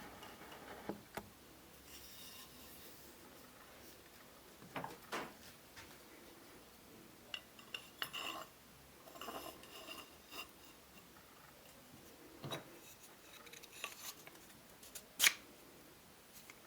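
Metal parts of a small hand plane being handled: scattered light clicks and short scrapes, with one sharper click near the end.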